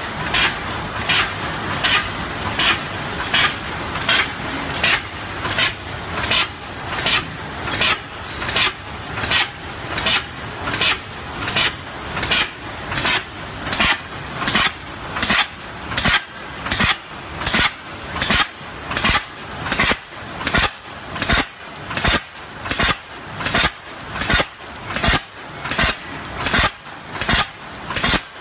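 Plastic drawstring-bag making machine running, cycling with a sharp stroke a little under twice a second over continuous mechanical running noise.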